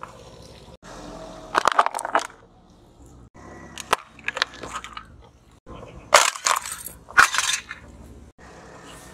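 A car tyre crushing small brittle objects one after another: separate bursts of crunching and cracking, split by abrupt cuts. The loudest, about six and seven seconds in, are glass and plastic breaking.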